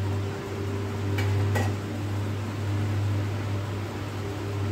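Steady low machine hum over a faint sizzle of whole spices (bay leaf, cinnamon, cloves, peppercorns) frying in oil in a kadai, with two light clicks about a second and a half in.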